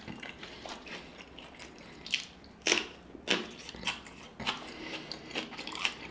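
Close-miked chewing of seafood boil: wet mouth smacks and clicks, irregular, about one or two a second.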